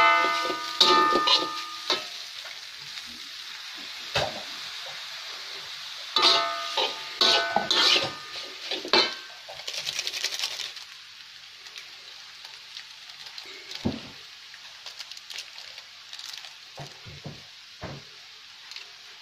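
Metal spatula clanking and scraping against a stainless steel wok while noodles and greens are stir-fried, over a steady sizzle of frying oil. The clanking comes in two spells and stops about halfway; the sizzle goes on more quietly, with a few light knocks.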